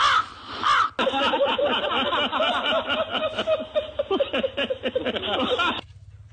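Two short crow-like caws, then several seconds of dense laughter that stops abruptly near the end.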